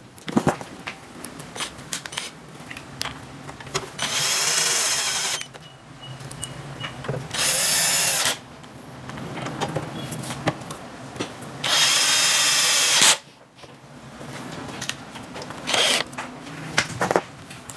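Cordless drill driving the screws that hold a power amplifier's front panel into a rack flight case, in three runs of about one to one and a half seconds each. Between the runs come clicks and knocks of handling.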